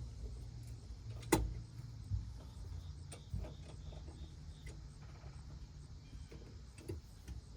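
Scattered metal clicks and knocks, the sharpest about a second in, from a tool working at a seized rear brake caliper piston on a Toyota Prius as it is forced to wind back.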